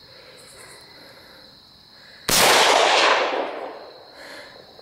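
A single rifle shot from a Del-ton AR-15, about two seconds in, its sharp report echoing and dying away over about a second and a half.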